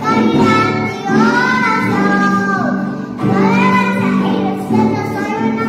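A young girl singing a song in Spanish, with long held notes that bend in pitch, over a guitar accompaniment.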